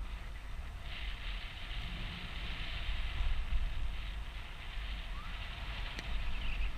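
Wind buffeting the camera microphone on a moving chairlift: a steady low rumble under a hiss that thickens about a second in. A single sharp click about six seconds in.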